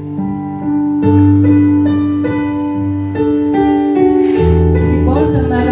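Worship music on keyboard: slow, sustained piano-like chords changing about once a second, with a deep bass coming in about two-thirds of the way through.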